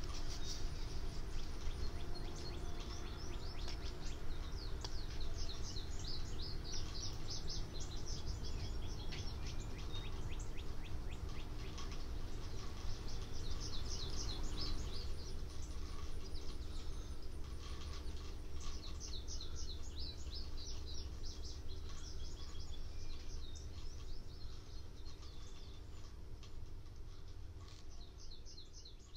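Small birds singing in quick, repeated chirping trills over a steady low background rumble, the whole fading out near the end.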